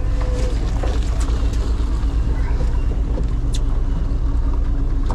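Fishing boat's engine running steadily, a low even drone, with a few light clicks over it.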